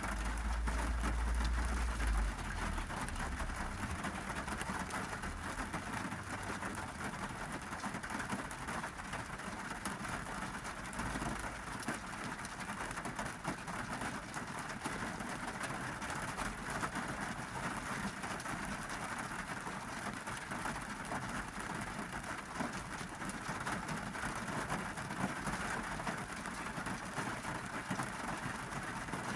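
Steady rain drumming on a car's roof and glass, heard from inside the car. A low rumble sits under it for the first couple of seconds, then fades.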